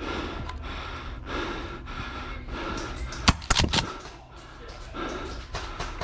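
Airsoft gun going off in a quick run of about four sharp snaps a little past halfway, over faint scattered clatter.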